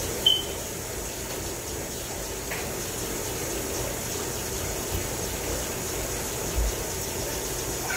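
Kitchen faucet running steadily into the sink, an even rush of water. A short high chirp just after it begins.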